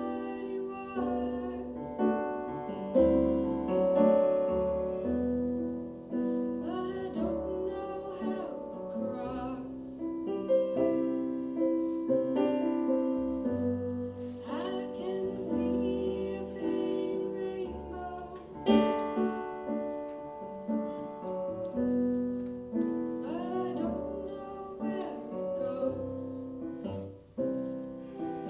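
A live song: a digital piano accompanies a woman singing, with a flute playing along.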